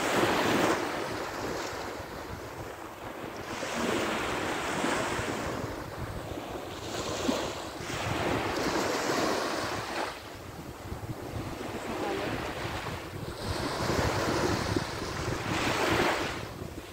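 Sea waves breaking on a sandy shore, a rush of surf that swells and fades every few seconds, with wind blowing on the microphone.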